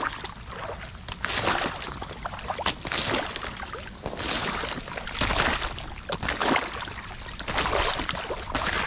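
Hisea rubber work boots splashing through shallow, icy puddle water as someone walks, about one step a second.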